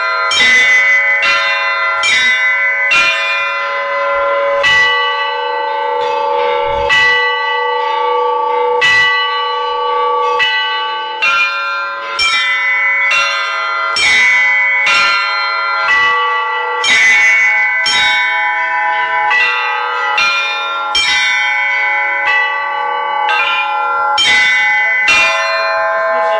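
A set of church bells of several pitches being rung in a rhythmic pattern. A strike comes about every second, and each one rings on into the next so the tones overlap.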